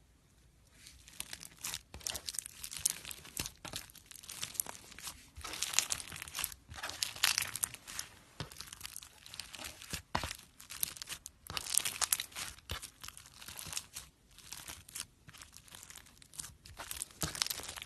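Slime being squeezed and worked by hand, making a dense run of crackling, popping clicks that starts about a second in.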